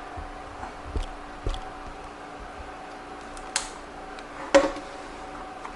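A few scattered light clicks and knocks from objects being handled, the sharpest about four and a half seconds in, over a faint steady hum.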